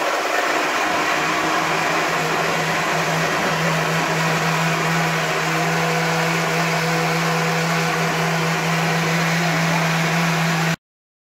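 Personal bottle blender running steadily, its motor hum under a loud rush as it blends a red fruit smoothie; it cuts off suddenly near the end.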